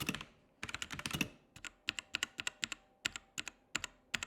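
Typing on a Krom Kernel mechanical keyboard with Outemu Red linear switches: a quick flurry of keystrokes, a short pause, a second flurry, then slower, separate key presses.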